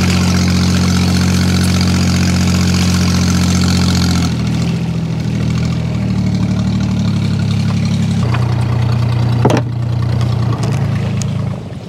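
Small boat engine running steadily, then throttled back about four seconds in to a lower, slower note, easing down again later and dropping off just before the end.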